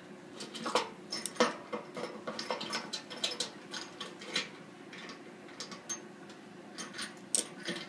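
Socket ratchet clicking in short, irregular runs, with sharper metallic clinks off the stainless steel keg, as a bolt through the keg wall is cranked tight to draw a dimple in the metal.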